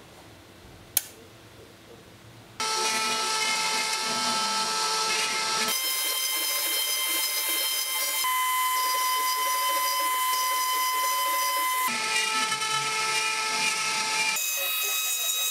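A single sharp click about a second in, then the X-Carve CNC's router spindle starts about two and a half seconds in and runs with a steady high whine as its bit cuts into a pine board. The pitch of the whine shifts abruptly several times.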